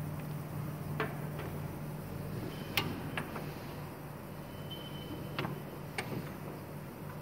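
Steel die frame of an automatic die-cutting machine clicking and knocking in a few sharp strikes as it is handled and slid into the machine on its rails, over the steady low hum of the machine.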